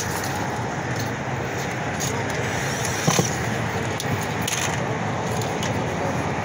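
Steady outdoor background noise, with one sharp knock about three seconds in.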